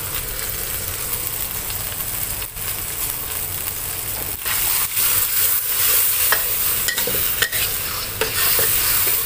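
Sauce of oyster sauce and chilli paste sizzling in a hot steel wok. About four seconds in the sizzle grows louder as a metal spatula stirs through it, with scattered clicks of the spatula scraping the wok.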